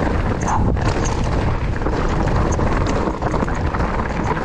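Wind buffeting the microphone of a mountain bike riding fast downhill, with the tyres running over the dirt trail: a loud, steady noise heaviest at the low end, with scattered small knocks.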